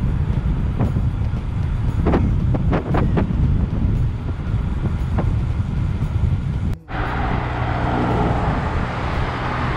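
Heavy wind buffeting on the microphone of a camera carried along on a moving road bike. The noise drops out for an instant about seven seconds in and comes back steadier, with a low hum under it.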